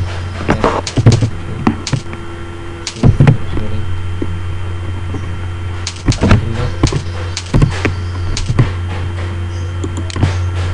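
Computer keyboard keys clicking in short irregular bursts as coordinates are typed, over a steady low electrical hum.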